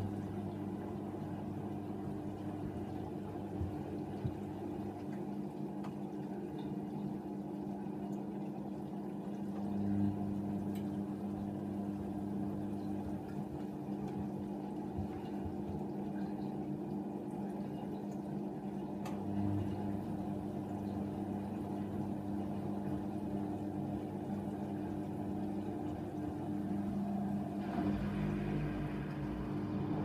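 Hoover Nextra HNWL 7146 front-loading washing machine in its wash phase, with a duvet in the drum: the motor hums steadily as the drum tumbles the wet load, with water sloshing. The lowest part of the hum drops out and returns in stretches as the drum turns and pauses, and a deeper rumble comes in near the end.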